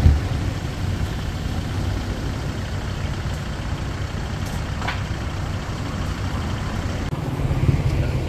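Steady low rumble of street traffic and engines, with a brief high tone about five seconds in and an abrupt change just after seven seconds.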